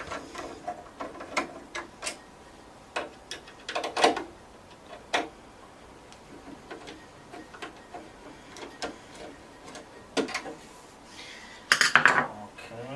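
Irregular light clicks and metallic knocks from undoing screws on a desktop PC's metal case and handling the case, with a busier cluster of knocks near the end.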